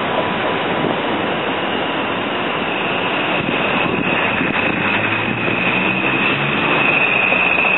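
Streetcar running along its rails, heard from inside the car: a steady rumble of the moving car, with a thin high whine that comes in about halfway and grows louder near the end.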